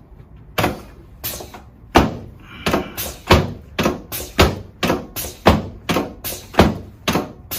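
A steady series of sharp thumps, about two a second, each ringing briefly, starting about half a second in.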